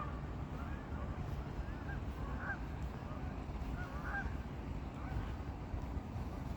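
Geese honking: short calls, several every second or two, over a steady low rumble.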